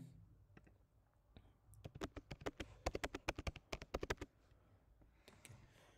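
Typing on a computer keyboard: a few scattered key clicks, then a quick run of keystrokes for about two and a half seconds, and a few more clicks near the end.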